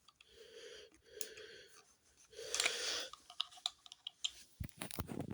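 Three breaths close to the microphone, about a second apart, the third the loudest, followed by a run of small clicks and taps from handling near the end.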